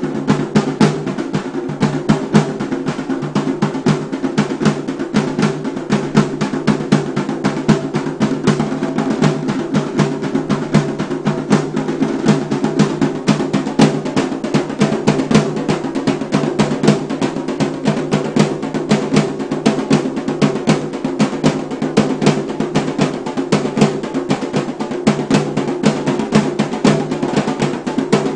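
A small group of double-headed barrel drums beaten together in a fast, steady, unbroken rhythm, with dense repeated strikes and a deep drum tone underneath.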